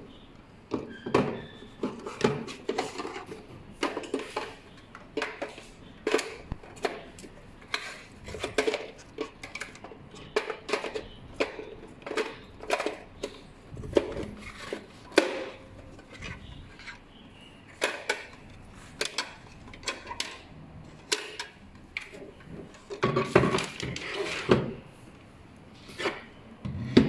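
Irregular hard plastic clicks and knocks, with some rubbing, as the black plastic housing of a Fimax electronic rodent zapper is handled and turned over on a tabletop. A longer, denser stretch of handling noise comes near the end.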